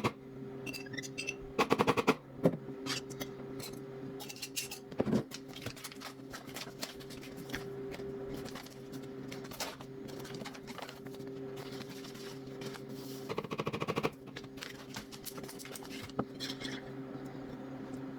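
Scattered clicks and light handling noises, with two short rasping, rattling bursts, over a steady low hum.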